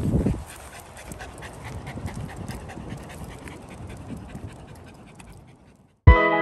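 Dog panting quickly and rhythmically, about four breaths a second, fading away; music starts near the end.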